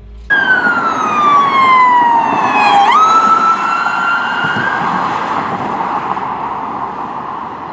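Police siren wailing. It starts suddenly with a tone that slides slowly down, jumps back up about three seconds in, and then climbs a little before dying away under a steady rushing noise.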